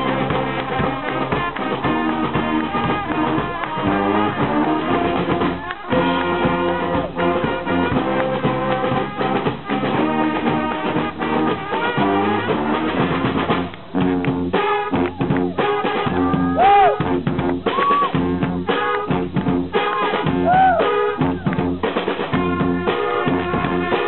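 Brass-and-drums street marching band playing live: sousaphones, saxophones and other horns over a bass drum with cymbal and snare drums. A little past the middle the music dips for a moment, then comes back in with a run of sharp, punchy accented hits.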